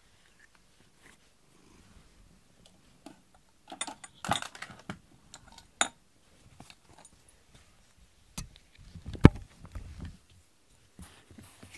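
Scattered clicks and rustles of a cat pawing and moving about close to the microphone on a foam floor mat, with one sharp knock about nine seconds in.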